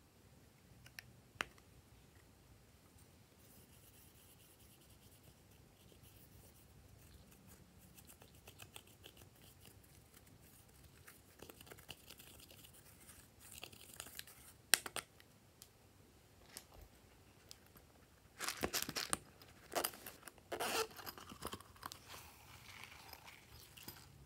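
Close handling of a plastic makeup compact: a few sharp clicks, then scratchy scraping as a plastic tool digs out the pressed makeup. About two thirds of the way through come louder crackling, rustling bursts.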